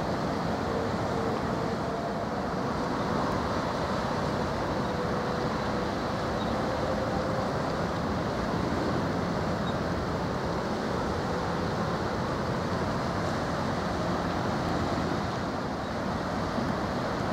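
Steady rumbling wash of ship engines, wind and water along a busy strait, with a faint hum that fades out about halfway through.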